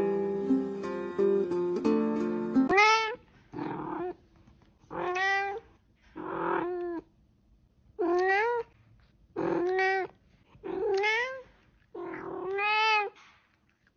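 Guitar music that cuts off about three seconds in, followed by a cat meowing over and over: about six short meows that bend in pitch, with rougher, breathy sounds between them.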